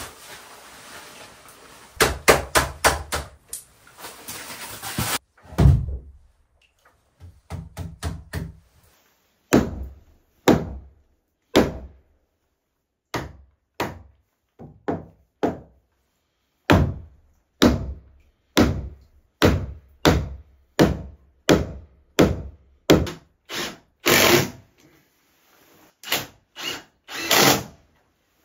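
Sharp knocks on timber as a roof beam is worked into place, one after another with short pauses, and short bursts of a cordless drill/driver driving screws into the beam's metal joist hangers, longest near the end.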